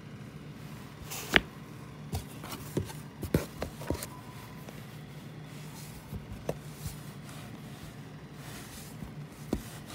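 Paperback books being lifted, handled and set down in a box: scattered taps and knocks, the sharpest about a second and a half in and a cluster soon after, over a steady low hum.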